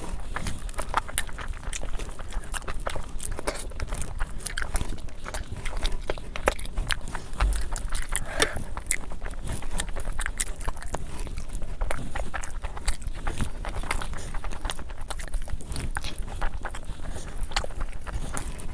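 Close-miked eating sounds: chewing, with many quick, irregular mouth clicks and smacks, from someone eating curry and rice.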